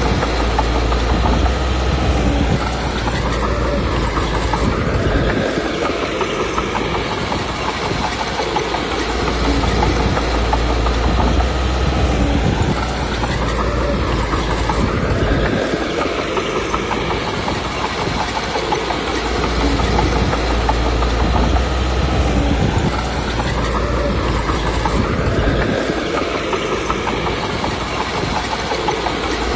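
Komatsu D21P crawler bulldozer at work: its diesel engine running steadily under load with the clatter of its steel tracks, the low rumble swelling and easing in repeated cycles as it pushes.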